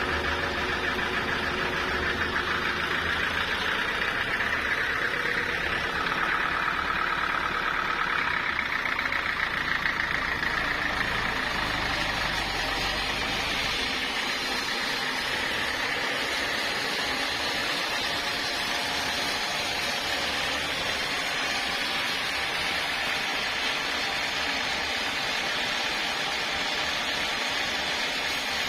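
Sawmill running, saw cutting through a large log with a steady engine-like hum and a high whine from the cut. About halfway through the low hum drops away, leaving a steady hiss.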